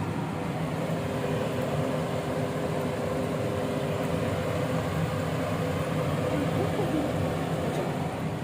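Steady whirring hum of a running motor or fan, a smooth rush of air with a constant low drone under it.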